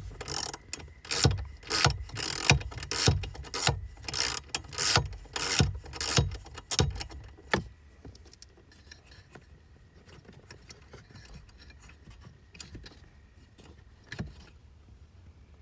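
Metal clicking and rattling of hand tools and loose parts while the blower motor's fasteners are worked loose. A quick run of sharp clicks lasts about seven seconds, then only faint scattered clicks.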